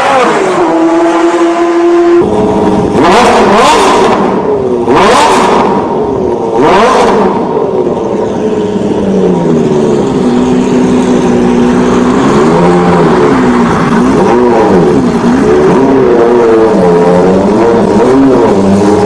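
Ferrari F50 and F40 engines revving: three short, loud bursts of throttle in the first half, then repeated revs rising and falling in pitch.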